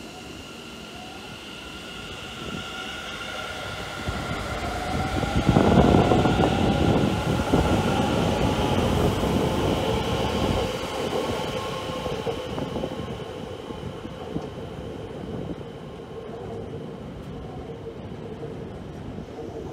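Elevated metro train passing and pulling away, its electric drive whining on a few steady pitches over the rumble of the wheels. It is loudest about six seconds in, then fades slowly as the train moves off.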